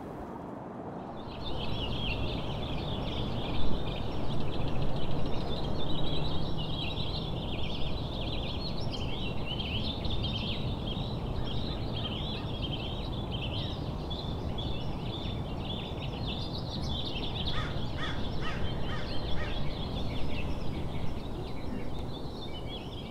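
Many small birds chirping and chattering together in a dense, continuous chorus that starts about a second in, over a steady low background noise.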